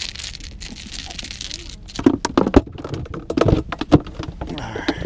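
A freshly caught fish being unhooked by hand. There is a steady hiss at first, then from about two seconds in a flurry of knocks, slaps and taps as the fish and tackle are handled.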